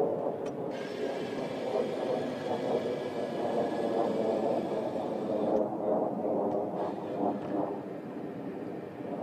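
Steady flight-line noise around a parked F-16: an even rumble with a faint steady whine through the first half, with no distinct events standing out.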